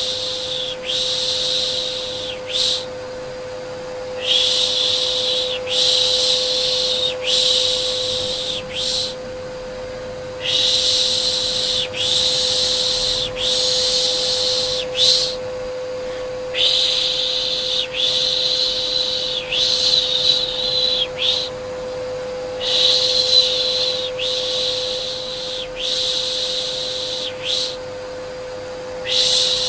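Vacuum cleaner running with a steady humming tone, overlaid by a shushing 'shh' repeated over and over, each shush lasting a second or two with short breaks between, as white noise for settling a baby.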